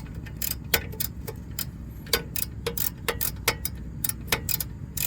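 Hand ratchet wrench clicking in short runs as it snugs up the 18 mm brake caliper bolts, a few sharp ticks a second, irregularly spaced.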